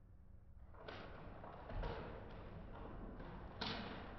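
A child's fork knocking and scraping against a plate of scrambled eggs, slowed down: three soft knocks, each trailing off slowly.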